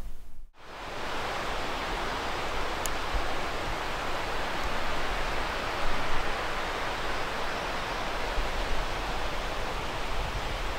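Steady, even outdoor rushing noise that begins after a brief dropout about half a second in.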